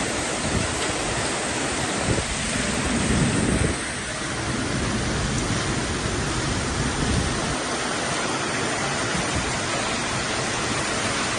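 Heavy rain pouring down, a dense steady hiss, with low rumbling swells beneath it, strongest a few seconds in.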